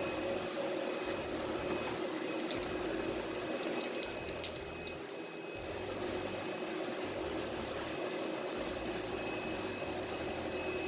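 Steady mechanical hum and hiss, with a few faint clicks about two to four seconds in.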